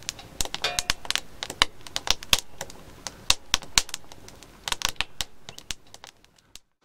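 Fire crackling in a small metal stove: irregular sharp snaps and pops, several a second, thinning out and fading near the end.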